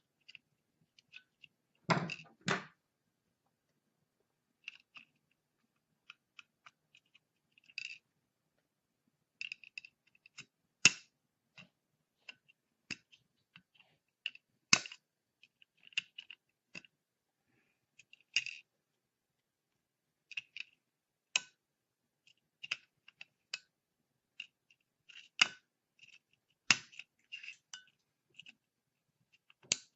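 Irregular sharp clicks and snaps of pliers cutting and prying away the plastic housing of a melted heatbed connector on a miniRambo circuit board, with a louder crackling cluster about two seconds in.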